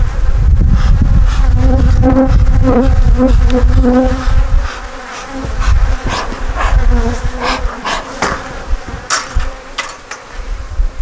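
Honeybees buzzing loudly around an opened hive, a steady hum over a low rumble in the first few seconds. A handful of short sharp sounds come in the second half.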